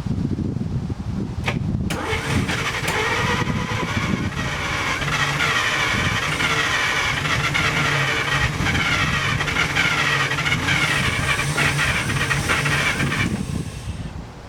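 1947 DeSoto's flathead six turning over on the starter for about eleven seconds, then winding down near the end. The engine is starved of fuel: none is coming from the fuel pump.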